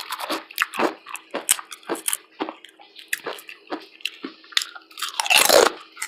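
Close-miked chewing and crunching of pepperoncini chips in a person's mouth, with short crisp crunches about three a second. A louder, longer crunch comes about five seconds in.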